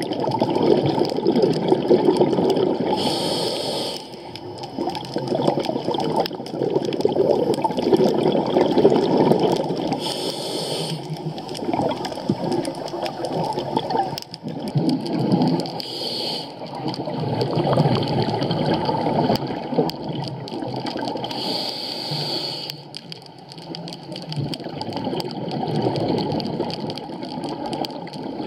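Scuba diver breathing through a regulator underwater. Four breaths, each a short high hiss on the inhale followed by a longer bubbling rush of exhaled air, about every six seconds.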